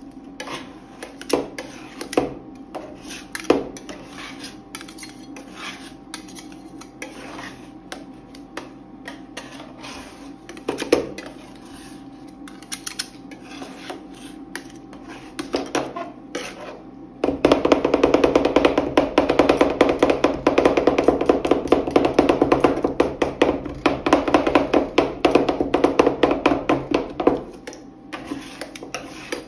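Metal spatulas chopping and scraping ice cream mixture on a stainless-steel cold plate: scattered single taps and scrapes at first, then, a little past halfway, a long run of fast chopping strokes clattering against the steel that eases off near the end.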